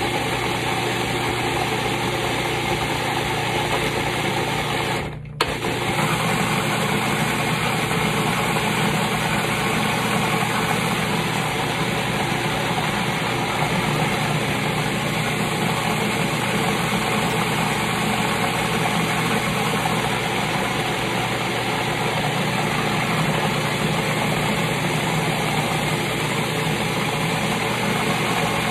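An old Cuisinart food processor's motor running steadily, chopping green pepper and herbs pushed down its feed tube into a wet purée. The sound drops out for a moment about five seconds in, then carries on.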